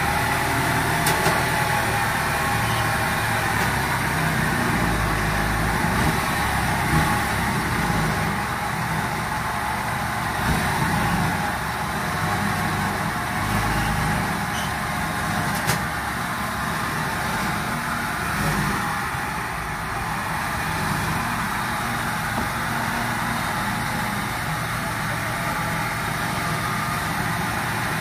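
Diesel engine of a tracked rice combine harvester running steadily as the machine crawls slowly forward on its tracks.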